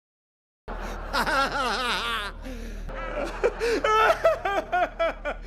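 A man's theatrical villain's laugh, Lord Voldemort's cackle in a foreign-language dub, starting about a second in after silence and going on in rapid bursts of 'ha-ha'.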